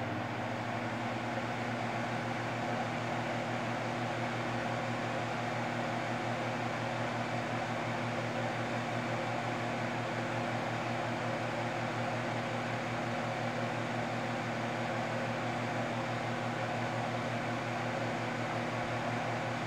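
Insignia NSF9T6BK 9-inch table fan running steadily on its high setting: a shaded-pole motor hum under an even rush of air from the blades.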